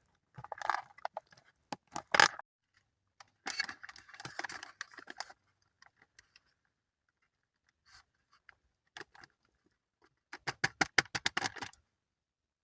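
A spoon stirring rehydrated freeze-dried food inside its foil-lined pouch: irregular bursts of bag crinkling and spoon scraping, then a quick run of clicks near the end.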